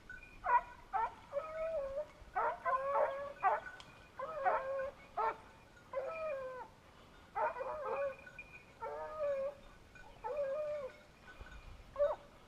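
Hunting hounds baying and yelping in a repeated run of calls, several of them wavering and dropping in pitch, with more than one voice overlapping at times. This is typical of a pack giving tongue while on the trail of a wild boar.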